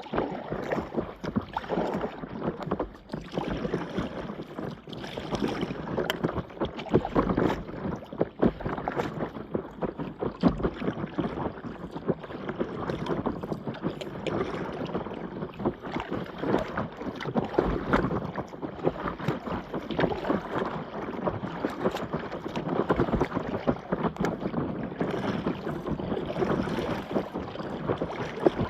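Paddle strokes splashing and water sloshing around a stand-up paddleboard as it is paddled across open water, in irregular bursts.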